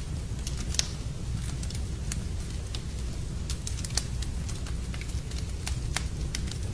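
Wood fire crackling in a fireplace: irregular sharp pops and snaps over a steady low rumble, with one louder pop about a second in.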